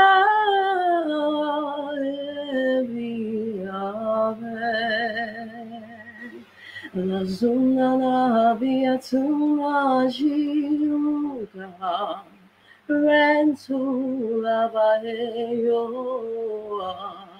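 A woman singing solo and unaccompanied, holding long notes with a wide vibrato and pausing briefly between phrases. The voice is heard over a video call.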